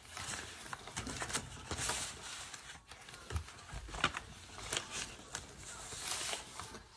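Paper banknotes rustling and crinkling as they are handled, with short irregular crackles.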